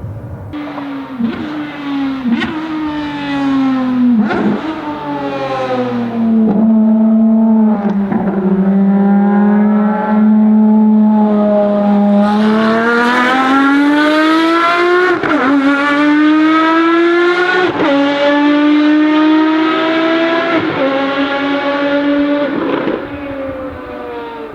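Ferrari FXX Evoluzione's V12 racing engine at high revs on track, its pitch rising and falling with quick gear changes every couple of seconds. It gets louder as the car approaches and passes, then fades near the end.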